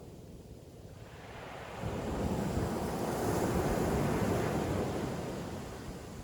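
A single ocean wave breaking on the beach: a rush of surf that swells sharply about two seconds in, then slowly fades away near the end.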